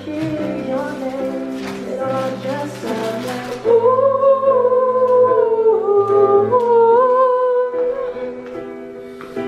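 A song playing from a vinyl record on a turntable through a 1990s home stereo: a wavering sung melody over held accompanying notes and a bass line.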